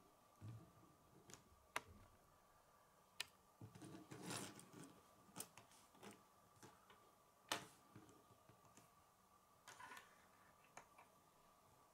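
Plastic K'nex pieces being handled and set down on a wooden table: scattered faint clicks and taps, with a short rattle of handling about four seconds in. A faint steady hum runs underneath.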